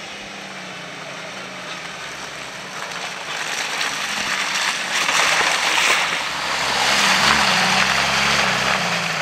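Jeep Wrangler's engine running under load as it drives through deep mud past the camera, with the tyres churning and splashing through mud and water. The splashing builds from about three seconds in and is loudest in the second half.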